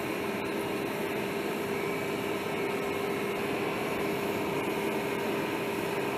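Steady machine hum and hiss with a constant low tone underneath, unchanging throughout.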